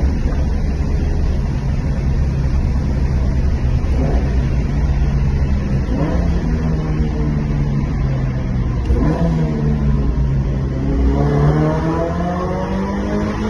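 Toyota GR86's 2.4-litre flat-four running through an XForce Varex 2.5-inch valved cat-back exhaust, echoing in a tunnel. The engine pitch dips and picks up again a few times, then climbs steadily near the end as the car accelerates.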